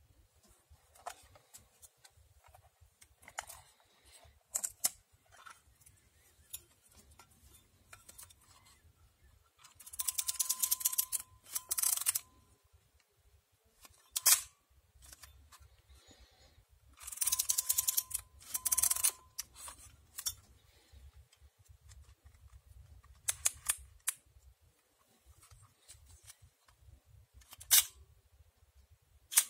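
Sokol-2 Avtomat 35mm rangefinder camera being worked by hand: light handling clicks, two stretches of rapid ratcheting ticking about two seconds long each, and several sharp single clicks of the shutter firing.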